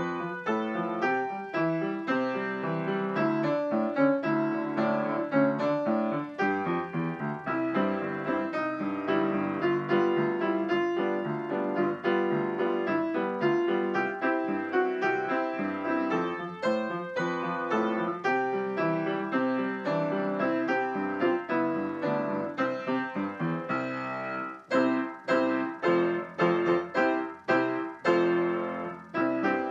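Piano playing the accompaniment to a school song, with a run of short, separate chords struck one after another near the end.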